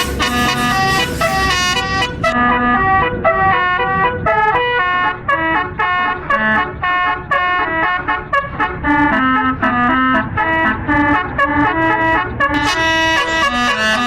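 Bus basuri (telolet) horn playing a quick melody, its loud brassy notes stepping from pitch to pitch several times a second.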